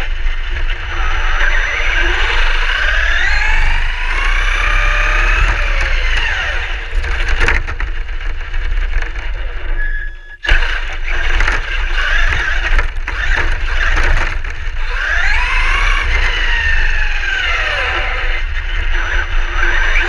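Traxxas E-Revo electric RC truck's motor and drivetrain whining, the pitch rising and falling as it speeds up and slows, over rumbling tyre and wind noise. About ten seconds in the sound drops away briefly, then comes back with a sudden loud jolt.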